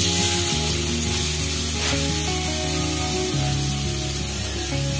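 Finely chopped onion sizzling steadily as it fries in hot oil in a kadhai, over soft background music.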